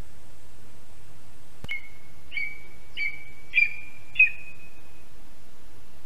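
Lesser spotted eagle calling: a run of five high, piping notes about two-thirds of a second apart, growing louder, the last one drawn out. A sharp click comes with the first note, and a steady hiss underlies it all.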